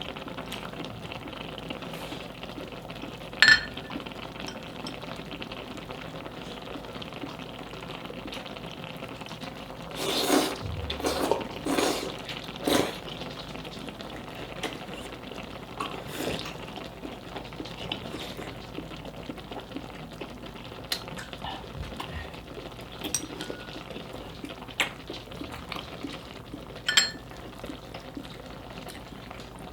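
Dakgalbi with broth simmering in a pan, a steady bubbling hiss. Utensils click against the pan and dishes now and then, with a cluster of louder eating and scraping sounds about ten seconds in.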